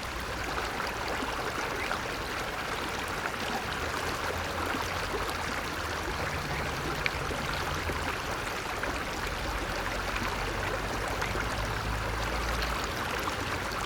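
Steady rush of running water from a small stream, with no breaks or changes.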